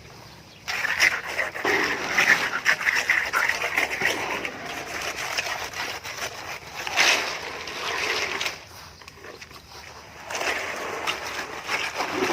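Wet concrete being worked by hand: gritty scraping and splattering in spells, with a short lull about three-quarters of the way through.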